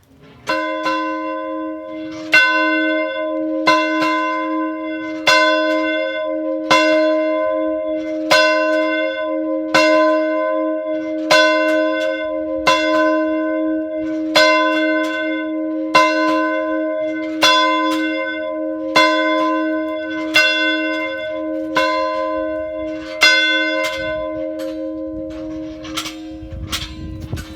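A single church bell rung steadily, about one stroke every second and a half, its hum ringing on between strokes.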